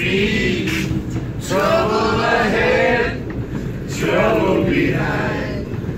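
A group of male voices singing together in unison in phrases of a couple of seconds, over a steady low rumble.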